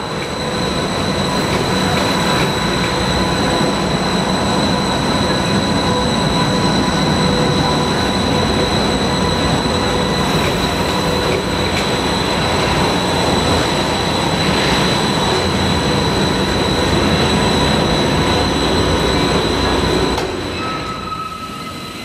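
Electric rack-railway train of the Rigi railway passing close by: a steady high whine over the rumble of the running gear, which dies away about 20 seconds in.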